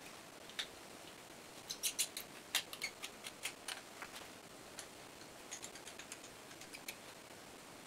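Small metallic clicks and ticks of a hex key turning the retaining screws into the brake assembly of a Demag ZBV hoist motor, irregular, with a quick run of sharper clicks about two seconds in and lighter ticks near the end.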